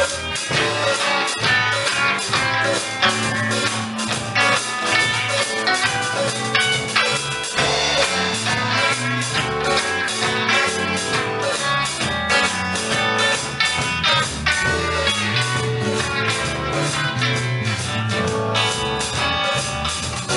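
A band playing a blues-rock number at a sound check: electric guitar over a drum kit.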